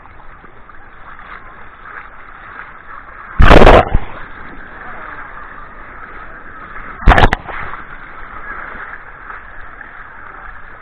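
Two loud, sudden bangs about three and a half seconds apart, the first longer, over a steady background noise.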